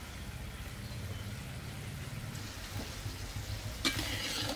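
Leftover sauce sizzling in a wok over a wood fire, a steady rain-like hiss. About four seconds in comes a sharp knock, as a plate of food is set down on a wooden table.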